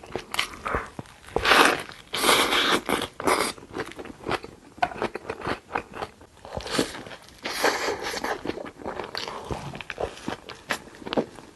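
A person biting into and chewing a burger close to the microphone: irregular bursts of crunching and mouth noise, loudest for a couple of seconds after the start.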